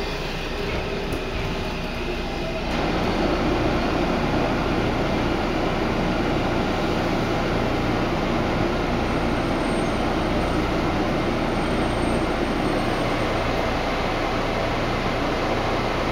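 Washington Metro 3000-series subway car's steady rumble heard from inside the car, growing louder about three seconds in and then holding steady.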